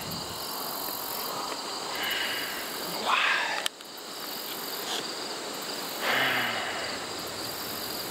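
Steady chorus of crickets and other insects. Over it, a man lets out two loud, breathy sighs, the first cut off abruptly.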